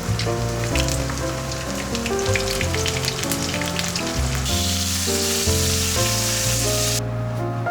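Food sizzling and crackling as it fries in a pan, over background music. The crackle turns into a denser, steadier sizzle partway through, and it cuts off suddenly about seven seconds in.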